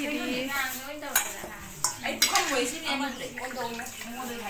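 Stainless-steel serving bowls and spoons clinking, with a few sharp metallic knocks as food is scooped out of a large iron wok. People talk in the background throughout.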